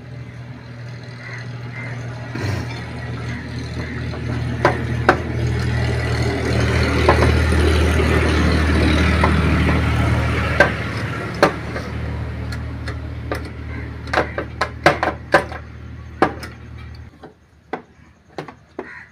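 An engine running with a steady low hum that swells and fades, then cuts off suddenly about 17 seconds in. Sharp metallic clicks of hand tools come over it, clustering near the end.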